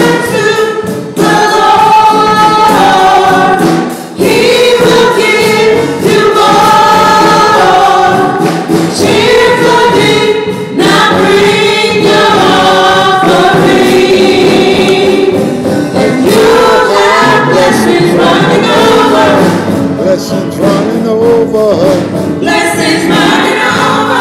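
Church praise team singing a gospel worship song together, with band accompaniment.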